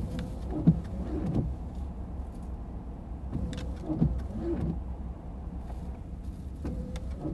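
Car engine idling while stopped, heard inside the cabin as a steady low rumble, with a few faint irregular clicks.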